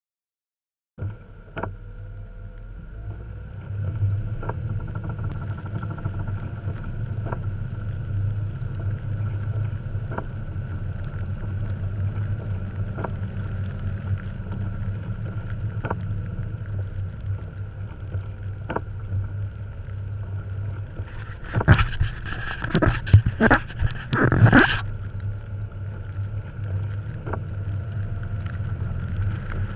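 Engine of a 1989 Jeep Cherokee XJ running steadily as it drives through fresh snow, with a faint tick about every three seconds. About 22 seconds in comes a cluster of loud knocks and thumps lasting some three seconds.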